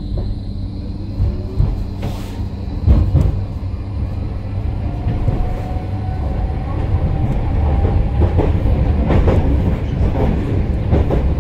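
A tram running on street-track rails and gathering speed: a low wheel-on-rail rumble that grows louder, with a faint rising motor whine in the middle. Sharp wheel clacks over rail joints come more often toward the end.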